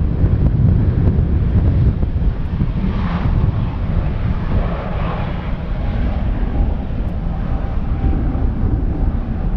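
Jet airliner engines rumbling deep and steady as a plane passes, with a faint steady whine over the rumble in the second half.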